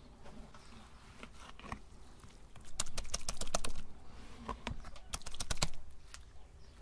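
Two quick runs of sharp clicking and tapping, each about a second long, one near the middle and one toward the end.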